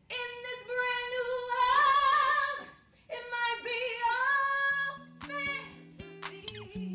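A woman singing a gospel song unaccompanied, in two long held phrases with a short breath between them. About five seconds in, her voice stops and electronic intro music begins, with low held tones and a regular clicking beat.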